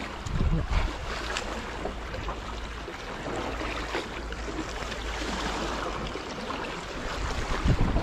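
Sea washing and surging against rocks: a steady rushing wash, with louder low rumbles about half a second in and near the end.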